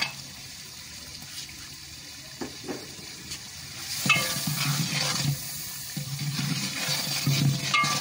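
A long ladle stirring a thin, simmering masala liquid in a large aluminium pot: liquid sloshing and bubbling, the stirring getting louder and more irregular about halfway through.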